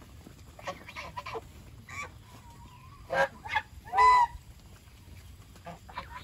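Domestic geese honking in a series of short, separate calls, the two loudest about three and four seconds in.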